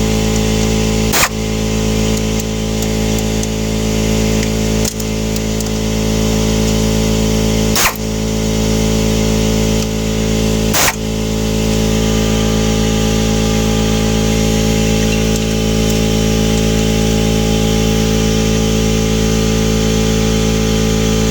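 A steady mechanical hum with several even tones and a hiss above it, broken by four sharp clicks about three seconds apart in the first half.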